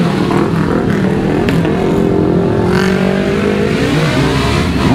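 Motorcycle engine running steadily while under way.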